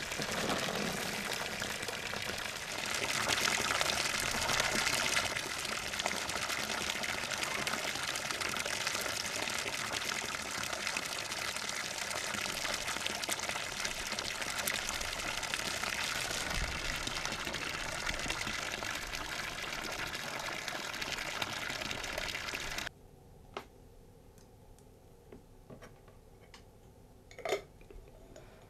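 Water falling in a steady stream from a wooden spout and splashing. Near the end it cuts off suddenly, leaving quiet with a few faint clinks.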